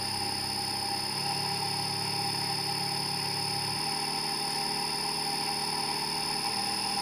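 Three-phase induction motor driven by a homemade STM8/IRAMS frequency inverter, running up toward rated speed with a steady high-pitched whine and a low electrical hum. The hum changes pitch in steps a few times.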